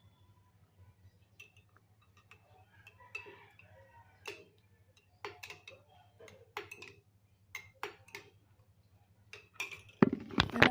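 Scattered light clicks and taps, about one or two a second, over a faint steady hum, with a louder knock near the end.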